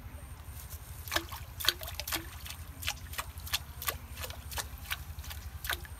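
A hooked fish thrashing at the water's surface, a quick irregular run of sharp splashes starting about a second in and stopping near the end.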